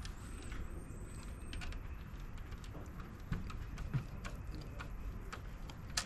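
Scattered light clicks and taps of hand work on small parts, over a steady low rumble, with two soft knocks a little after the middle and a sharp click near the end.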